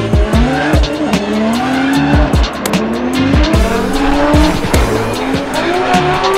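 Nissan S15 drift car at full throttle mid-drift, its engine pitch rising again and again as it revs, with tires squealing. A music track with a steady beat plays underneath.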